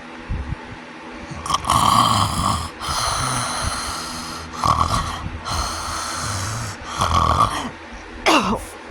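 A sleeping person snoring: three loud rasping snores about every three seconds, with breathy exhales between them, and a short sound that drops quickly in pitch near the end. The uploader attributes the snoring to sleep apnea.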